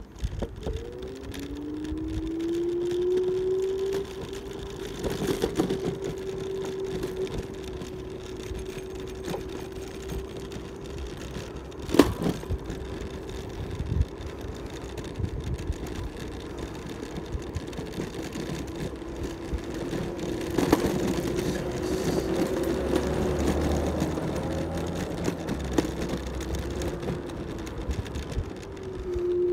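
Electric scooter's motor whining steadily while riding, its pitch rising over the first few seconds as it picks up speed, then holding, with a dip near the end as it slows and speeds up again. Low wind and road rumble lie underneath, and there is a sharp click about twelve seconds in.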